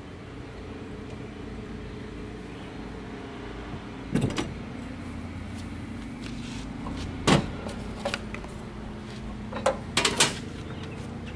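Metal clinks and clanks from handling a steel grill-mounting bracket, its retaining pins pulled and its support arms and the grill box moved, over a steady low hum. A few sharp clanks, the loudest about seven seconds in, with a cluster near the end.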